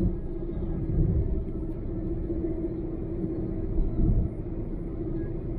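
A car driving at highway speed: a steady low rumble of road and engine noise, with a constant drone underneath and small swells in loudness.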